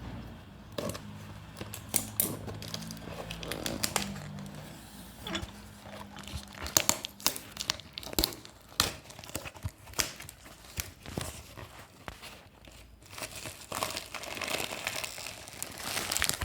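Hands opening a parcel: packaging crinkling and tearing, with many irregular sharp clicks and knocks. Loose pieces of the glass aroma diffuser inside, which arrived broken, clink as the box is handled.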